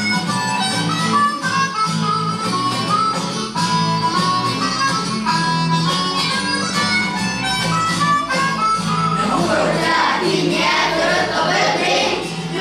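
Music: a melody of short notes over a steady bass line, with a singing voice coming in about nine seconds in.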